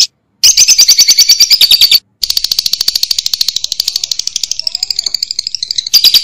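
Lovebird ngekek: a long, fast chattering trill of rapid high notes, about eleven a second. It breaks off briefly about two seconds in, runs softer through the middle, then grows loud again near the end.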